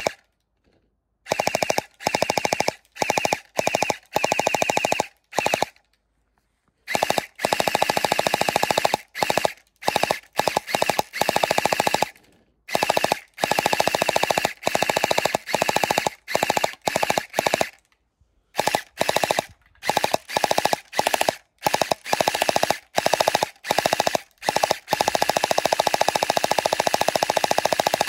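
Vasvarn UZI electric gel blaster, fitted with its silencer, firing on full auto: a rapid rattling stream of shots in repeated bursts, from short taps to a few seconds of continuous fire, with brief pauses between trigger pulls.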